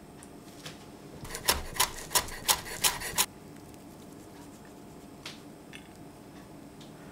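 A quick run of about six sharp clicks over two seconds, then a couple of faint ticks against low room tone: small plating sounds.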